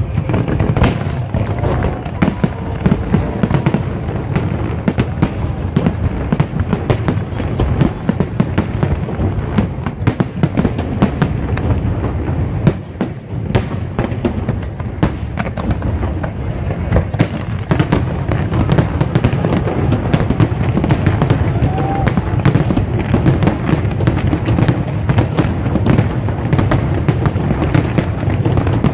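Fireworks display: a continuous rapid barrage of sharp bangs and crackles over deep booms, with a brief lull about halfway through.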